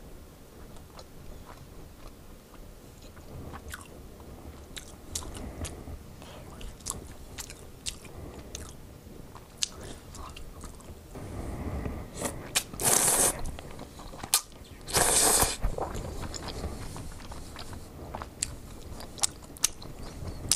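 Close-up eating sounds of udon noodles: wet chewing and small mouth and chopstick clicks, with two loud slurps about two-thirds of the way through.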